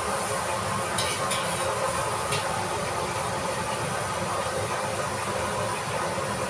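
Steady hiss of cooking on a stove, with a few faint light clicks about one and two seconds in.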